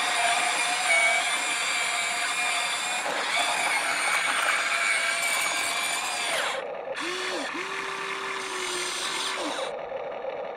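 Huina 1593 RC excavator's breaker hammer rattling hard with a steady electric whine. About six seconds in it stops, leaving quieter short motor whines that rise, hold and fall as the machine moves.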